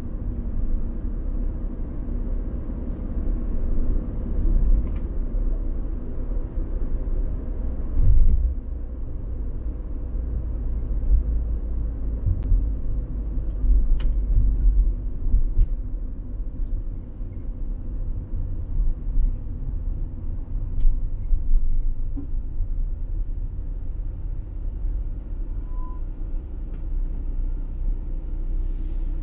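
Steady low road rumble of a car being driven on city streets, with a few faint clicks and a couple of short, faint high beeps.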